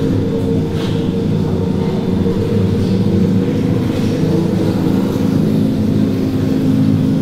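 Underwater hydrophone recordings mixed live and played over loudspeakers in a room: a loud, steady low drone of several held tones, with a few faint clicks.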